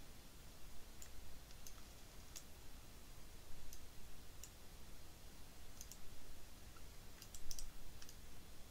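Computer mouse clicking faintly: about ten short sharp clicks at uneven intervals, several in quick succession near the end, as images are dragged and rotated on screen.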